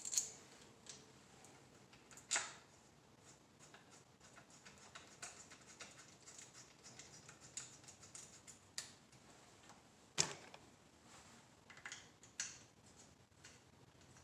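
Faint, scattered clicks and taps of small metal bike parts and hand tools being handled while a rear hydraulic disc brake is fitted, with two sharper knocks, about two seconds in and about ten seconds in.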